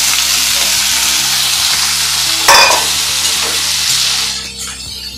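Diced potatoes and cabbage sizzling loudly in hot mustard oil in a steel kadai as they are stirred with a spatula, with one sharp knock about two and a half seconds in. The sizzle dies down near the end.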